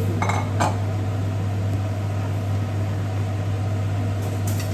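A steady mechanical hum, like a kitchen fan running, with two short clatters within the first second as a bunch of water spinach is dropped into a stainless steel pan of hot water.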